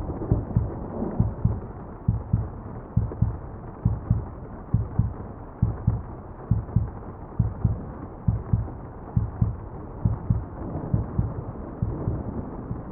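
A steady heartbeat, each beat a low double thump, over the steady hiss of muffled falling rain.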